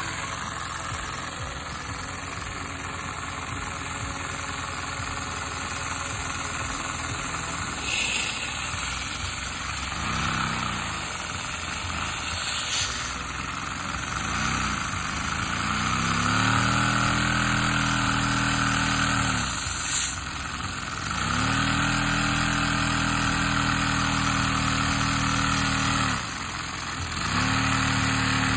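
A vacuum cleaner runs steadily, pulling on a LEGO vacuum engine that has a little water in its cylinder. The engine is spun up by hand several times. Two short spin-ups die away, then about halfway in it catches and runs with a steady hum that rises in pitch as it speeds up. It stops and restarts twice, with a couple of sharp clicks along the way.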